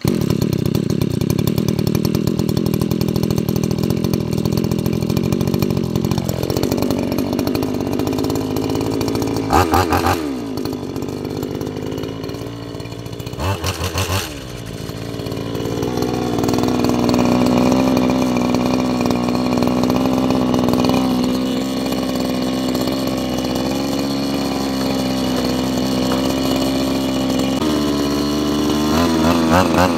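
Petrol brush cutter engine running. Its revs drop about six seconds in and it then runs steadily lower, with two short clattering rattles around ten and fourteen seconds and the revs picking up again near the end.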